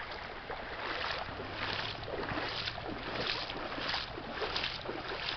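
Shallow stream water running and splashing over rocks, in a steady rush with irregular surges.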